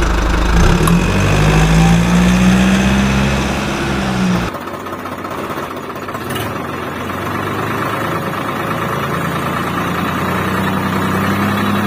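Tractor engine running, with a rise and fall in pitch over the first few seconds, then a sudden change to a quieter, steadier running sound about four and a half seconds in.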